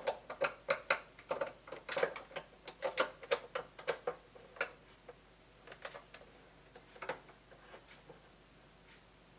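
Screws being driven into a Commodore 64's plastic case with a screwdriver: a run of small sharp clicks and taps, several a second for the first four seconds or so, then fewer and fainter.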